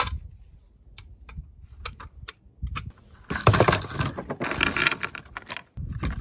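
Small stainless steel stove vent parts clinking as they are handled and set down on a wooden board: scattered light clicks, then a longer, louder metallic clatter in the middle.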